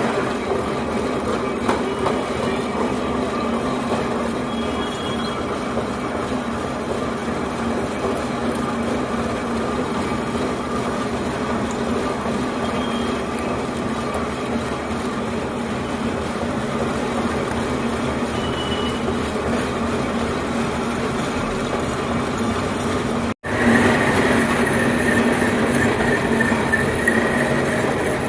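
Metal boring machine running steadily, with a constant machine hum and cutting noise. It cuts off abruptly about 23 seconds in and resumes at once slightly louder and brighter.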